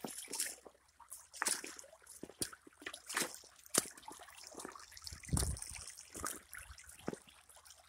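Shallow creek water trickling over gravel and stones, with scattered sharp splashes and ticks and a brief low rumble about five seconds in.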